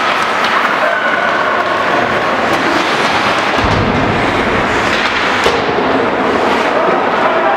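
Ice hockey play in an indoor rink: a steady noisy din of skates on ice, with sharp clacks of sticks and puck twice. A low booming rumble about three and a half seconds in, as the boards are hit.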